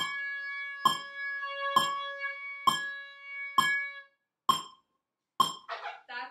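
Oboes holding long notes over a metronome clicking steadily about once every 0.9 seconds. The notes stop about four seconds in, leaving the clicks alone, and a brief voice comes in near the end.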